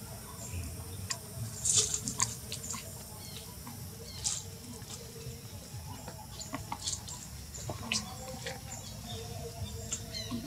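Dry leaf litter rustling and crackling under a baby macaque as it scrambles over it, heard as scattered brief crackles and clicks over a faint steady background.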